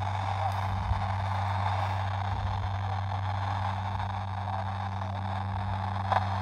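Portable analog TV's speaker giving a steady hiss of static with a low hum underneath: the sound of a weak, distant UHF TV signal. A short click about six seconds in.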